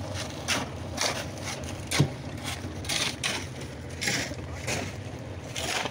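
Shovels and wooden screed planks scraping and pushing wet concrete across a roof slab: repeated gritty rasps about twice a second, with a sharp knock about two seconds in, over a steady low machine hum. The recording is played at double speed.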